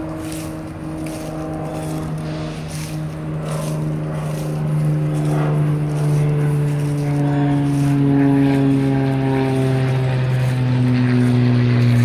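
A motor drone: one low hum with overtones that grows steadily louder and slowly sinks in pitch. Underneath it, footsteps crunch through dry fallen leaves, plainest near the start.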